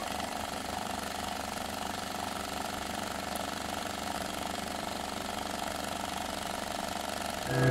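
Steady mechanical whir with hiss, of the kind an old film projector makes, laid under a vintage-film intro. Music starts near the end.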